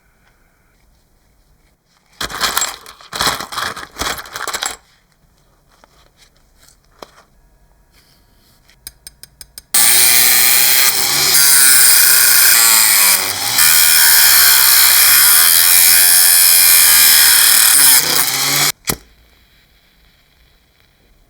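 Workshop tool noise. A few seconds of rough, noisy bursts come first, then a quick run of clicks, then a loud steady hiss from a power or air tool for about nine seconds that cuts off suddenly.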